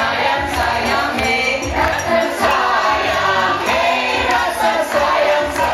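A group of people singing together into microphones over a music accompaniment with a steady low beat.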